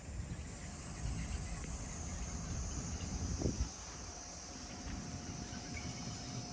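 Summer insects, likely cicadas, buzzing high and steady over a low rumble, with one short thump about three and a half seconds in and a faint steady hum joining at about four seconds.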